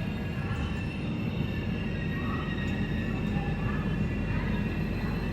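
Express passenger train running on the track, a steady rumble with thin high tones held above it.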